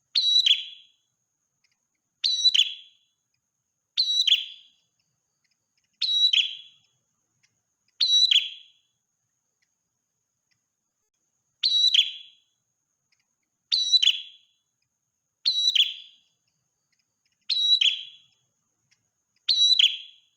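A prenjak merah, a small Southeast Asian warbler of the Cisticolidae family, singing the same short, high call ten times: a sharp note followed by a quick falling trill, about one every two seconds with a longer pause near the middle. The identical repeats are typical of a looped lure recording.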